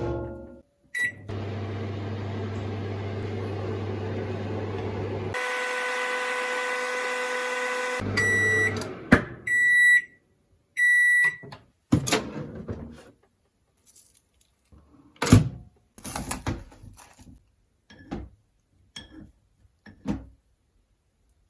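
Microwave oven heating wood glue: a short key beep, then the oven humming steadily as it runs, changing after a few seconds to a buzzier, higher tone, then three short end-of-cycle beeps. After the beeps come a series of knocks and clicks.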